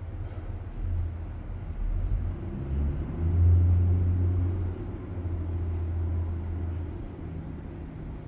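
Low engine rumble of a passing motor vehicle, swelling about three seconds in and easing off near the end.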